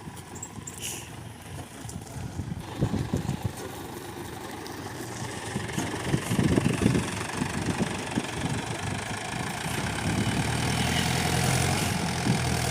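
Diesel engines of a backhoe loader and a tractor running, with an uneven low rumble that grows louder a couple of seconds in and settles into a steadier engine note near the end.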